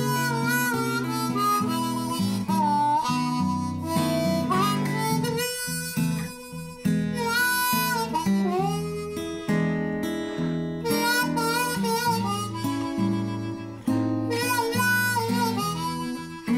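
Blues harmonica solo, the harp cupped in both hands, with notes that bend up and down, over strummed acoustic guitar accompaniment.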